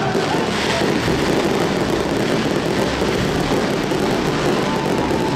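Fireworks going off in a dense, continuous run of crackling and rumbling, with no single bang standing out.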